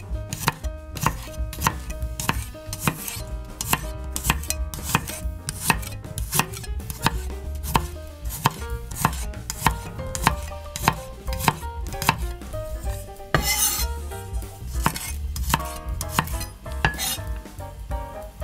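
Kitchen knife slicing garlic cloves on a bamboo cutting board: a steady run of crisp knife taps, about two a second.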